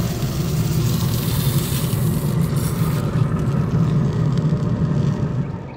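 Pellet grill running flat out with its fire pot exposed under a cast-iron pan: a steady rumble of fan-driven fire, with a high sizzle of hot oil in the pan that fades about halfway through.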